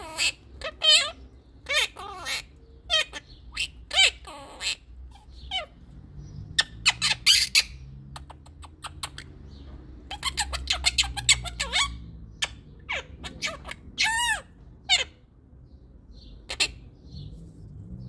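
Blue quaker parrot (monk parakeet) giving a run of short, sharp calls and chatter, with a rapid cluster around the middle and a longer ringing call later on.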